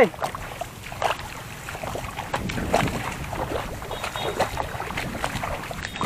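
Soft, irregular footsteps on a muddy paddy-field bund, about one or two a second, over the rumble of wind on the microphone.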